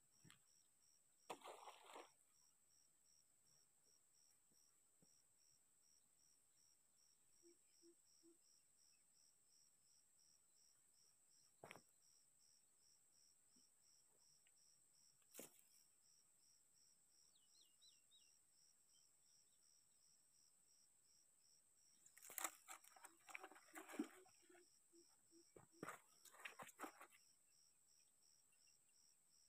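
Crickets chirping faintly and steadily, about three chirps a second, over a steady high whine. A few scattered knocks and rustles of handling close by, with a longer stretch of them near the end.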